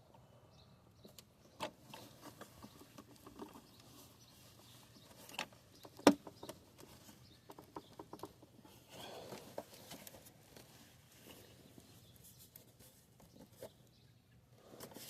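Scattered light clicks and taps of handling, with one sharp, louder click about six seconds in and a short rustle a few seconds later.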